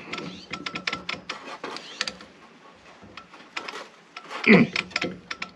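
Irregular clicks and clinks of metal tools and parts being handled, with a louder knock near the end.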